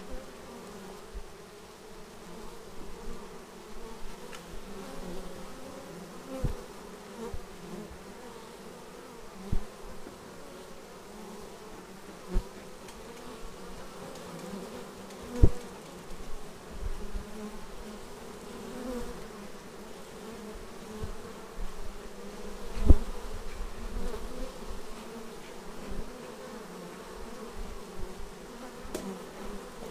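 A honeybee colony buzzing at the hive entrance: a steady, dense hum of many bees, with single bees' buzz wavering as they fly close past. A few brief, louder knocks stand out now and then.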